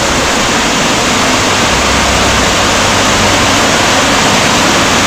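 Small river waterfall pouring over boulders into a pool: a steady, loud rush of water with no change.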